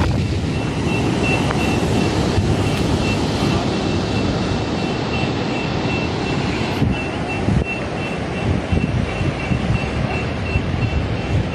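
Steady low rumble of wind on the microphone, with a reversing alarm beeping rapidly and steadily over it from about a second in.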